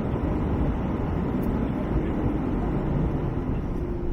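Steady low rumble of cabin noise inside an Airbus A321-200 on the ground before takeoff: engines and air-conditioning. A steady hum joins near the end.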